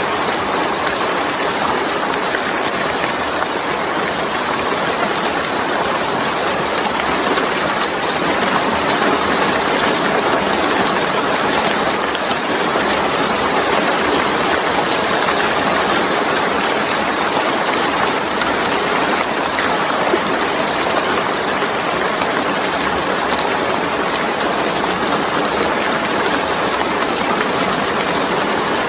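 Steady, dense rainfall: an even, continuous hiss of falling rain with no distinct drops standing out.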